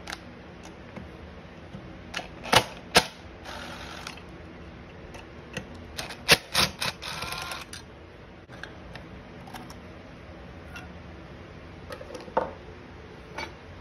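Cordless DeWalt impact driver unscrewing chainsaw muffler bolts in two short rattling bursts, among sharp clicks and knocks of the tool, socket and metal parts being handled.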